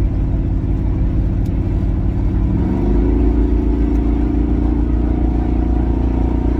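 Truck engine and road noise heard from inside the cab while driving, the engine pitch rising about two and a half seconds in as it accelerates, then holding steady at the higher pitch.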